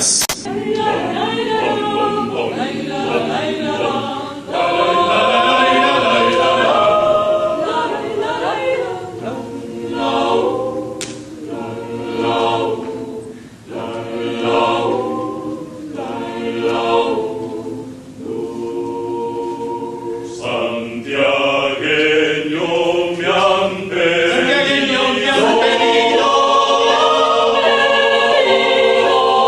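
Mixed chamber choir singing a chacarera a cappella in several parts, in phrases that swell and ease off, then fuller and sustained near the end.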